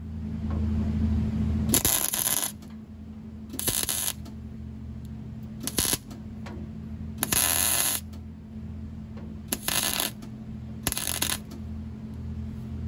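MIG welder tack-welding sheet steel: six short bursts of arc, each under a second, a second or two apart, over a steady hum from the welder.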